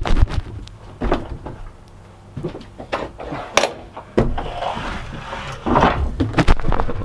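A sailboat's hardtop bimini being lowered by hand on its lines: a series of knocks and clunks from the top, its hinges and fittings, coming in scattered strokes and bunching together near the end as the top comes down.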